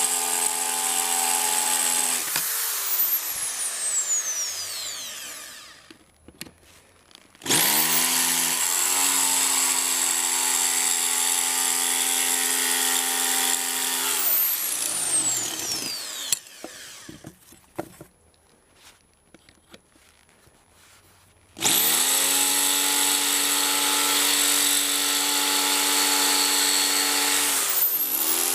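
Electric drill drilling out a stripped axle bolt in an inline skate frame, running in three stretches: it stops about two seconds in and winds down, starts again about seven seconds in for around seven seconds, and starts once more about twenty-two seconds in.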